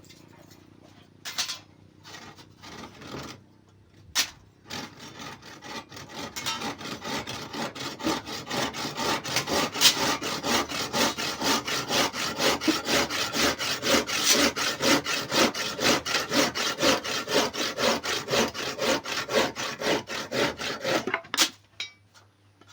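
Large-toothed hand saw cutting through a log with fast, even back-and-forth strokes, several a second. It starts with a few scattered knocks, builds up over the first few seconds, then stops shortly before the end.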